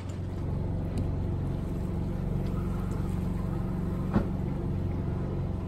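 A small sailboat's engine running steadily while motoring in a calm, with a low even hum. A single sharp knock comes about four seconds in.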